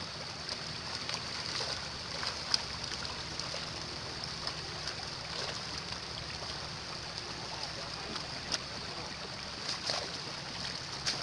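Steady rush of water, with a few sharp splashes as fish thrash in shallow muddy water, the loudest about two and a half seconds in and two more near the end.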